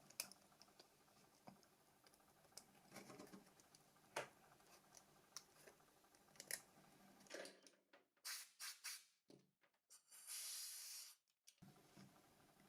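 Faint, scattered clicks and taps of the Nokia 6233's plastic housing parts being handled and fitted together, with three quick clicks about eight seconds in and a brief scratchy hiss a couple of seconds later.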